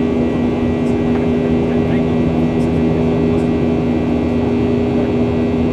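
Cabin noise of a Boeing 737-800 climbing after takeoff: the CFM56-7B turbofans' drone with a few fixed low hums under a steady rush of airflow, heard from a seat just ahead of the wing.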